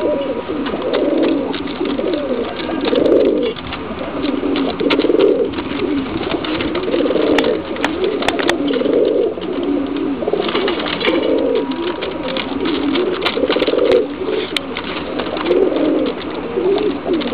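Domestic fancy pigeons cooing over and over, a rolling coo about every one to two seconds.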